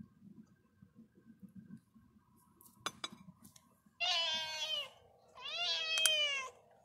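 A cat meowing twice, each meow just under a second long: the first falling in pitch, the second rising then falling. A single sharp click comes shortly before them.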